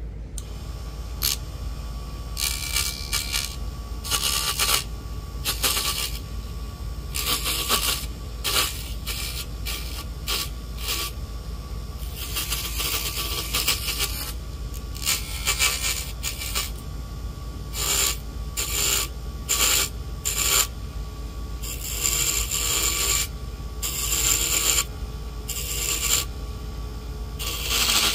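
A hand tool scraping and rasping against wood spinning on a mini woodworking lathe, in irregular bursts of a second or so, over the lathe motor's steady hum.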